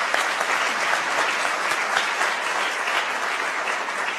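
Audience applauding steadily: a dense mass of handclaps from a room full of people.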